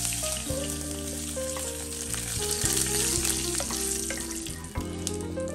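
Curry leaves sizzling and spattering in hot oil in a nonstick wok, stirred now and then with a wooden spatula. The sizzle thins out near the end. Background music plays underneath.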